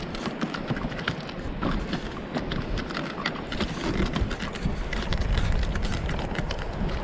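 Footsteps crunching over a beach strewn with shells and shell fragments: many small, irregular clicks, with a low wind rumble on the microphone.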